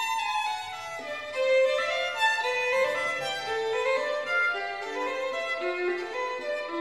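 Background music: a violin playing a flowing melody with gliding and stepping notes.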